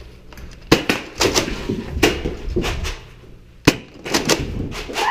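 Nerf Rival blasters firing and foam balls striking walls and furniture: an irregular series of sharp snaps and knocks, the sharpest nearly four seconds in.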